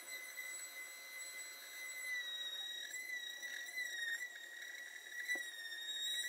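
Woodworking tool giving a steady high-pitched squeal that wavers slightly in pitch from about two seconds in.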